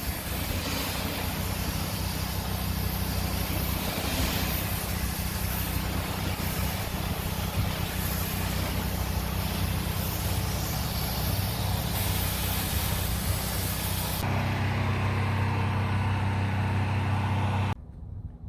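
Predator 4400 PSI gas pressure washer running, its engine humming steadily under a loud hiss of the water jet spraying. About 14 seconds in the spray stops and the engine runs on alone with a changed note, then the sound cuts off suddenly near the end.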